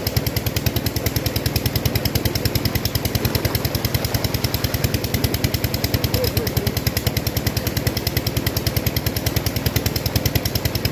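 A tubewell's engine running with a fast, steady thudding beat of about ten a second, over the rush of water pouring from the pipe into the concrete tank.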